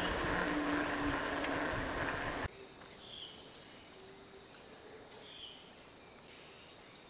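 A loud, steady rushing noise that cuts off abruptly a couple of seconds in, giving way to quiet jungle ambience: a steady, high insect drone with a few short chirps.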